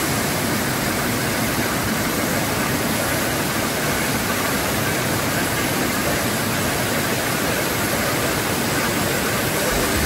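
Waterfall: water falling and cascading over rocks in a steady, even rush.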